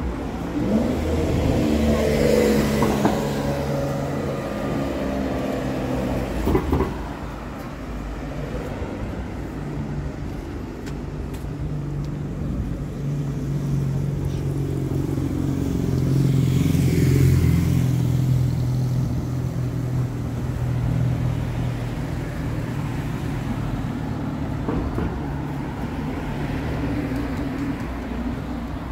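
Road traffic: cars driving past close by, one pass about two seconds in and a heavier engine hum building to a pass around the middle, with a sharp knock about six seconds in.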